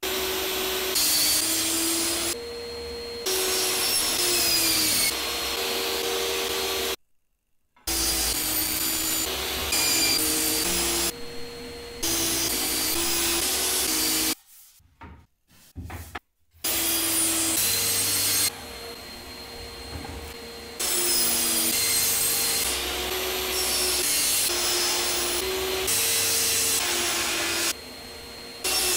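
Table saw running and cutting wooden panels, with a dust extractor running alongside; the whine steps in pitch as the blade takes the wood. The sound cuts off abruptly twice, about a quarter and half way through.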